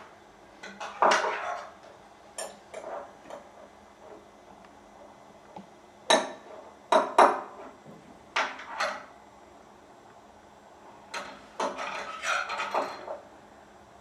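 Crockery and cutlery being handled on a tabletop: a series of clinks and knocks in uneven clusters, the loudest about a second in and around six to seven seconds in, with a busier run of small clatter near the end.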